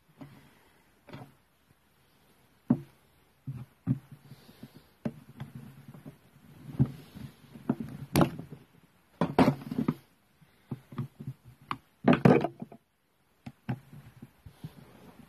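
Irregular knocks, clicks and short rattles of hand tools and strimmer parts being handled and fitted on a workbench, with the loudest rattling bursts about nine and twelve seconds in.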